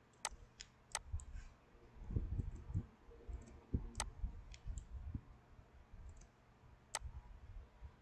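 Computer mouse clicking: a scattered series of sharp single clicks, with dull low knocks and bumps in between, loudest a little after two seconds in.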